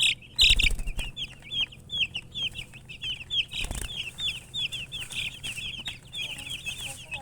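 A group of baby chicks peeping continuously, many short high chirps a second overlapping one another. Two dull low bumps, about half a second in and near the middle.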